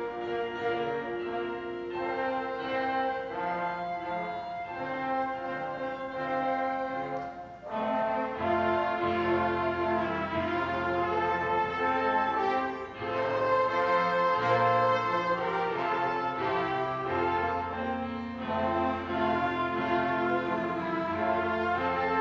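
Small orchestra of strings and brass playing sustained chords in a slow piece; the sound grows fuller about eight seconds in when a low bass line comes in.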